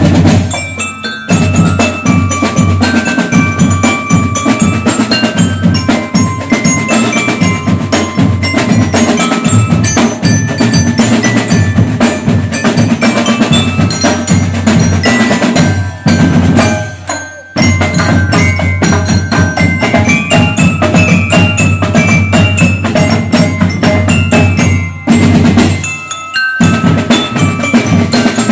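Marching drum band playing: horizontal metal-bar bell lyres struck with mallets carry a melody over a dense beat of marching drums. The music breaks off briefly about a second in, again past the middle and near the end, then carries on.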